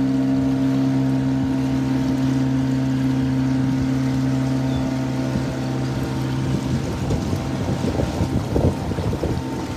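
Motorized wooden canoe's engine running at a steady pitch as the boat moves across the water; its low hum fades about seven seconds in, and wind buffeting the microphone takes over.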